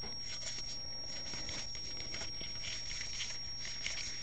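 Baseball trading cards being flipped through and slid against one another by hand: faint, quick rustling and light ticks. A steady low hum and a thin high whine run underneath.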